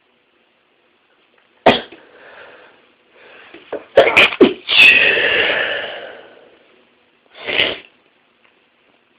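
A person sneezing: one sharp sneeze, then a breath drawn in and a louder burst of sneezes that runs into a long drawn-out voiced exhale, and a short noisy burst near the end.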